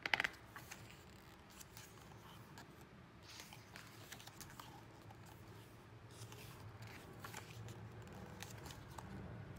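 Pages of a thick photobook being handled and turned by hand: a quick cluster of crisp paper clicks at the start, then soft paper rustles and slides, one page turning a few seconds in. A faint low hum runs underneath.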